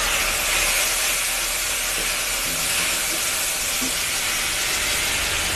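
Ground chilli and turmeric frying in hot oil in a kadai, hissing and sizzling steadily after a splash of water, as a wooden spatula stirs the paste.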